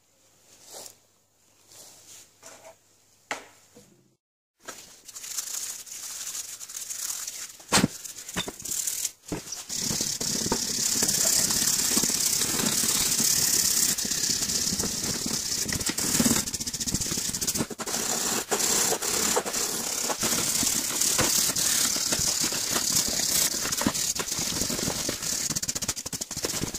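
A few light knocks and handling sounds, then, from about four seconds in, a brush scrubbing stripper-softened paint and rust off the steel body of an old screw jack by hand: a fast, continuous scratching that grows steady and loud.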